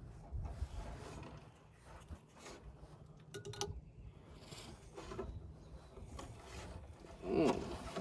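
Hand work on a condenser fan motor and its mounting: scattered clicks, knocks and rubs of metal parts, with a quick run of sharp clicks and a brief metallic ring about three and a half seconds in.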